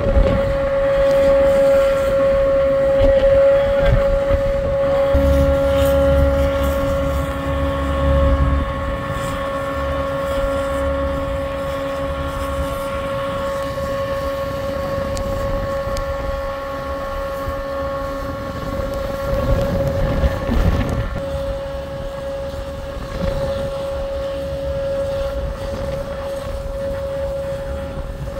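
Diesel engine of a tracked lifeboat launch-and-recovery tractor running steadily with a constant whine. A deeper rumble swells for a few seconds about five seconds in.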